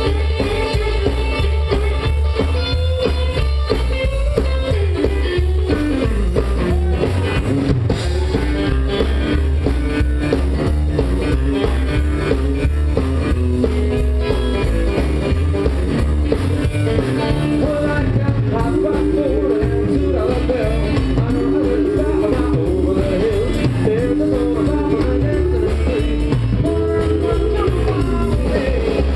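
Live country-rock band playing with an upright double bass, drum kit and hollow-body electric guitar over a steady driving beat, and a man singing.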